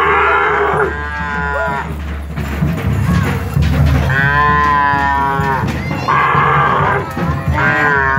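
Cattle mooing in several long calls as the herd is driven along, over background music.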